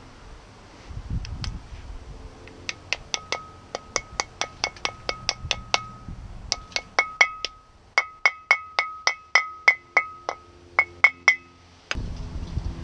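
A hammer tapping a grease seal into the hub of a Ford Explorer front brake rotor, about four metallic taps a second in two runs with a short pause between. Each strike leaves the steel disc ringing.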